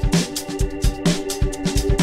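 Background music with a steady drum beat over held synth-like tones.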